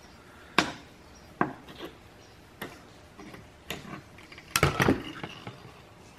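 Irregular sharp metallic clinks and knocks of hand tools and transmission valve-body parts being handled, about half a dozen, with the loudest quick cluster about four and a half seconds in.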